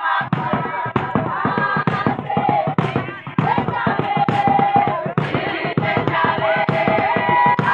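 A group of young women singing a Zulu dance song together. A rapid, dense beat of thuds starts under the singing right at the start and keeps going.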